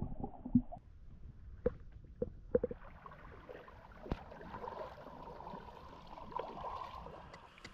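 Kayak moving through water: water gurgling and splashing along the hull, with a few sharp knocks in the first few seconds.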